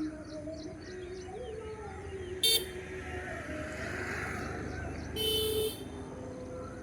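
Steady chirping calls, broken by two short horn toots: a very brief, loud one about two and a half seconds in and a half-second one just after five seconds.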